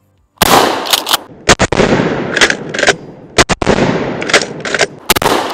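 Maverick 88 pump-action shotgun fired four times in quick succession, about a second and a half apart. Each blast has a long reverberating tail, and the short clacks of the pump being cycled come between the shots.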